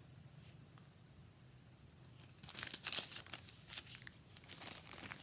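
Plastic packaging crinkling and rustling as a phone case is handled and taken out, in quick crackly bursts starting about halfway in after a near-quiet start.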